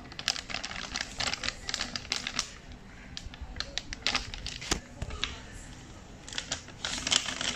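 Plastic flour packet crinkling and clicking as a handheld mini heat sealer is clamped on its open edge and pressed along it, a string of irregular sharp clicks and crackles.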